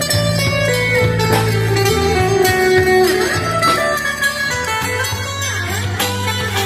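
Instrumental passage on an amplified acoustic guitar: a melody of held notes with slides, over steady low bass notes.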